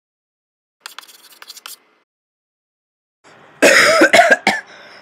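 Faint clicks about a second in, then a person coughing and clearing their throat in several loud bursts near the end.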